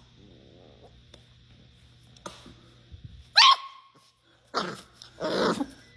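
A dog barking and yipping: a sharp yelp falling in pitch about halfway through, then two more barks near the end.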